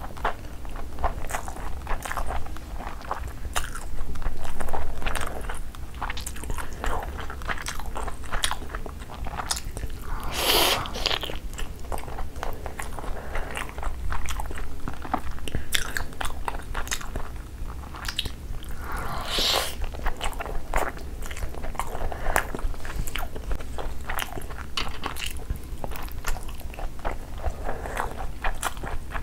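Close-miked chewing of a mouthful of rice and egg curry eaten by hand, full of quick wet mouth clicks and smacks. A few louder, brief wet mouth sounds stand out about 5, 10 and 19 seconds in.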